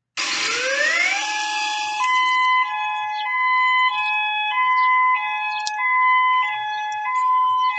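Emergency alert system (EAS) alarm: a hiss with two rising sweeps in the first second, then two tones alternating high and low, each held about half a second.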